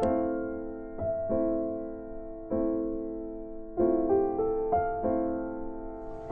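Soft piano background music: single notes and chords struck about once a second, each left to ring and fade.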